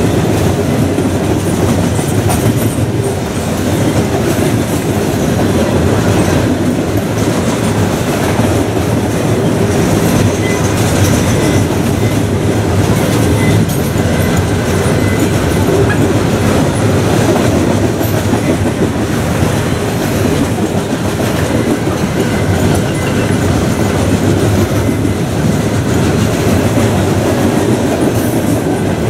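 Freight train of steel coil cars rolling past at close range: a loud, steady rumble of cars and wheels on the rails, with a continuous rapid clatter.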